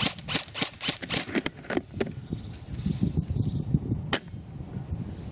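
Airsoft guns firing: a rapid string of sharp cracks for about the first two seconds, then two single cracks about two seconds apart, over low wind rumble on the microphone.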